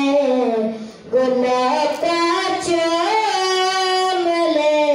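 A boy singing a naat solo, in long held notes that glide up and down, with a brief breath pause about a second in.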